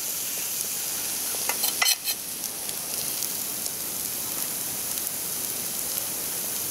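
Food frying in a pan: a steady sizzle, with a few light clicks about two seconds in as a spoon touches the plate.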